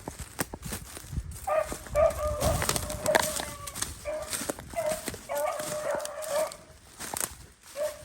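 Beagles baying on a rabbit's trail, drawn-out hound bawls repeated in bouts as the pack runs a freshly jumped cottontail. Scattered sharp snaps and crackles sound among the bays.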